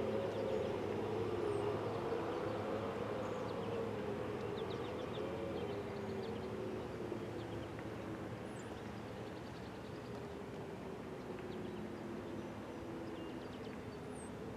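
Outdoor warning siren tone wavering slowly up and down, gradually fading and dropping a little in pitch, with short high chirps scattered over it.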